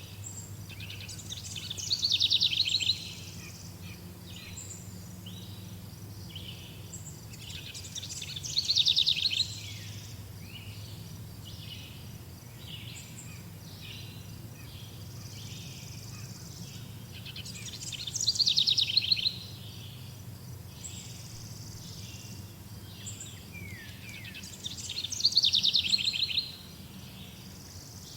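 Forest birdsong: one songbird sings a loud, rapid, high song four times, each about a second and a half long and growing louder, with gaps of about seven seconds, over fainter chirps from other birds and a faint steady low hum.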